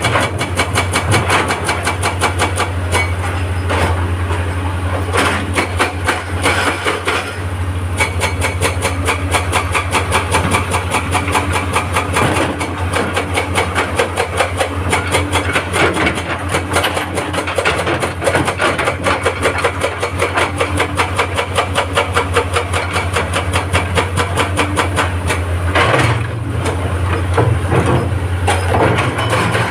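Hydraulic breaker on an excavator hammering rock in a rapid, even run of blows, over the steady drone of the excavator's diesel engine.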